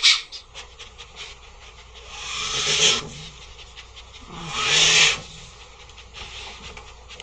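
Giant anteater huffing: two long, breathy puffs about two seconds apart, each swelling and then stopping sharply, with light ticking and rustling between them.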